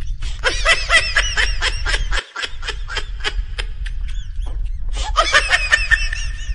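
High-pitched giggling and snickering laughter in quick runs of short notes, over a steady low rumble; both break off briefly about two seconds in.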